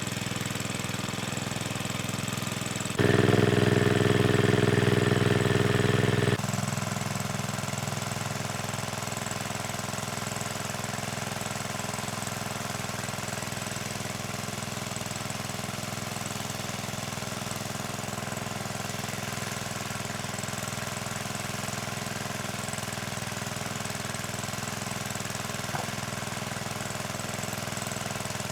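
Small engine running steadily with a knocking, mechanical hum, much louder for about three seconds near the start before settling back.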